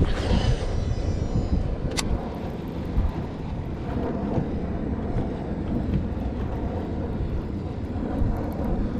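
Wind rumbling on the microphone over open water. At the start a baitcasting reel's spool whirs as a lure is cast, and a single sharp click comes about two seconds in.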